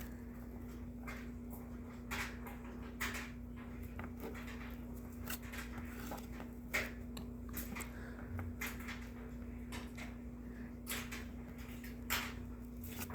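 Paper trading cards being handled and flipped through by hand: scattered soft clicks and rustles as cards are slid off the stack, over a steady low hum.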